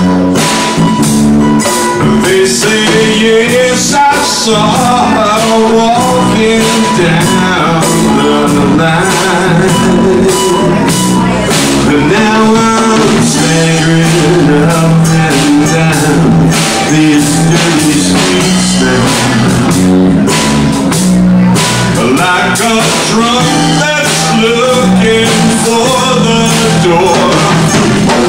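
Live blues band playing a slow number: drums, electric bass guitar and ukulele under a wavering, bending lead line from the frontman, cupped close to an amplified microphone.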